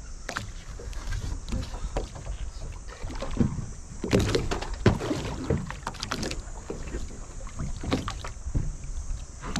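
Water lapping against the hull of a small drifting fishing boat over a low steady rumble, with scattered sharp clicks and knocks that are thickest around the middle.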